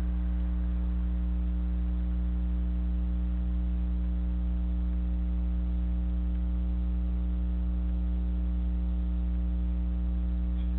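Steady electrical mains hum in a security camera's audio: a low, unchanging hum with a ladder of overtones over faint hiss.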